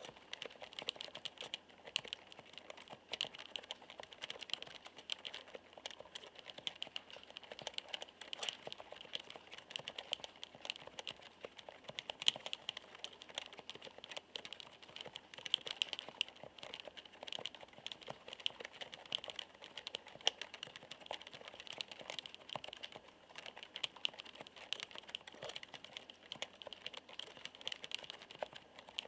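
Continuous typing on a μTRON keyboard with Topre electrostatic capacitive (contactless) switches: a steady stream of keystrokes, several a second, with the soft "koto-koto" sound typical of these switches.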